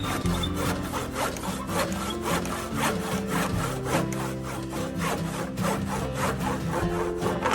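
Wood being sawn in quick, even strokes, several a second, over background music.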